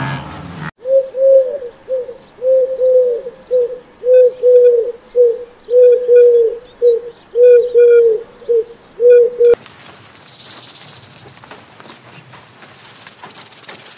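Owl hooting: a long run of short, slightly falling hoots, about two a second. Near the end it cuts off and insects buzz and chirp in high, steady drones.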